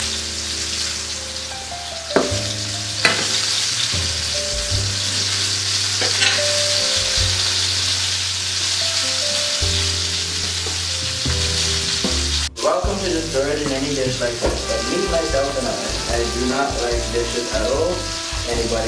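Bacon-wrapped pork loin sizzling steadily as it sears seam-side down in a hot frying pan, frying in its own rendered bacon fat with no oil added. There are a few light knocks in the first six seconds.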